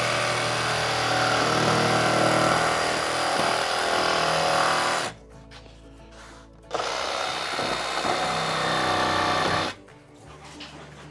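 Cordless jigsaw cutting through a skid plate: it runs about five seconds, stops briefly, then runs about three seconds more and stops.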